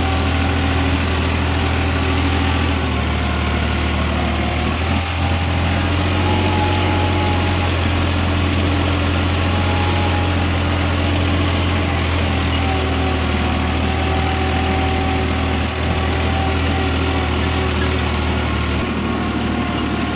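Farmtrac 45 tractor's three-cylinder diesel engine running steadily under load while it pulls a harrow through dry soil, heard from the driver's seat. The engine note shifts slightly about three seconds in and again near the end.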